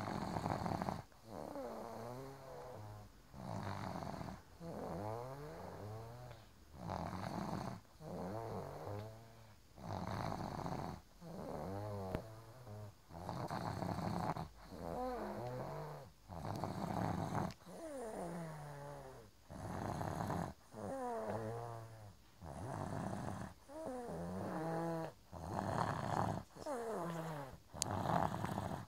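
A person snoring in his sleep: a pitched, rattling snore on each breath, roughly one every two seconds, its pitch wavering up and down within each snore.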